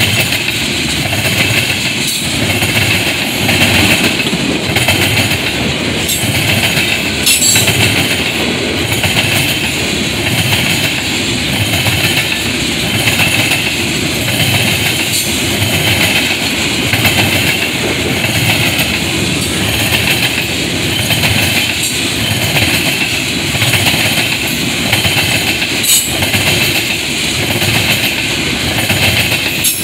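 Freight train of tank cars and covered hoppers rolling past close by: a steady rumble and rattle of steel wheels on the rails, with a rhythmic clickety-clack about once a second as wheel sets cross rail joints, and a couple of sharp clanks.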